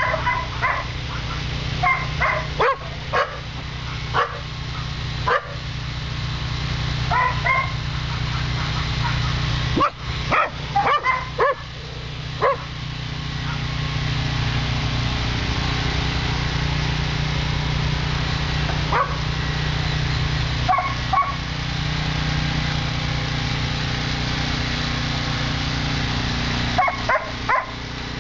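Dogs barking and yipping on and off in short clusters, with gaps of several seconds between them, over a steady low hum.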